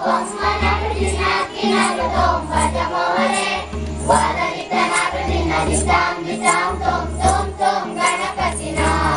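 A group of children singing a rhythmic chant-like song together, over an accompaniment with a low note repeating about every second and a half and a regular jingle.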